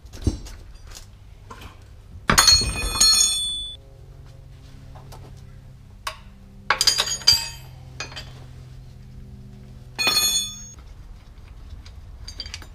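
Metal wrench and linkage parts clanking and ringing against a Ford E4OD transmission case while its shift linkage is taken off. Three loud clanks a few seconds apart, with small clicks between.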